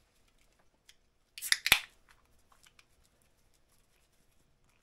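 A pull-tab can of beer being cracked open, a short sharp crack and hiss about a second and a half in, followed by faint small clicks.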